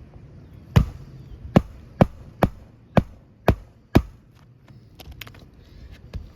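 Hammer driving roofing nails into a new asphalt shingle: seven sharp strikes about half a second apart, stopping about four seconds in.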